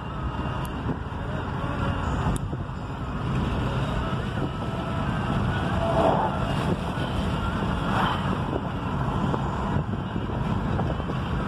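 Wind and road noise inside a moving car with a window down: a steady rush that swells louder twice past the middle.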